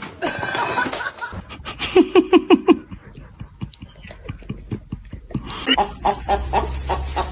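A person laughing in a quick run of about five 'ha' pulses about two seconds in, with more chuckling later on.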